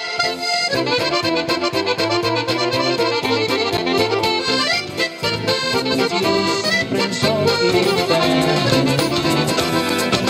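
Instrumental break between sung verses of a comic Italian folk-style song: an accordion-like lead melody over a steady dance beat.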